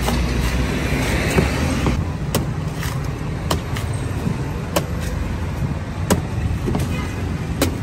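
Cleaver chopping the husk of a young green coconut on a wooden board: about seven sharp chops at irregular intervals. Steady street traffic rumbles underneath.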